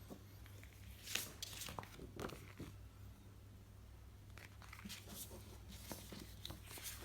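Plastic packaging and clear poster sheets being handled: scattered soft crinkles and rustles, a few sharper ones about a second in and again around five seconds in, over a low steady hum.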